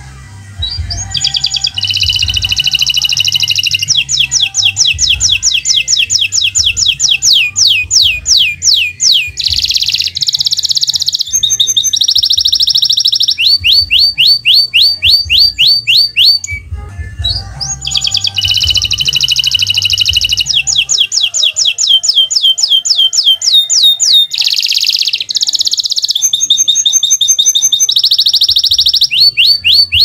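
Domestic canary singing long phrases of rapid repeated syllables: fast trills and rolled tours, high and bright. There are two long phrases with a short pause a little past halfway, over a low background beat.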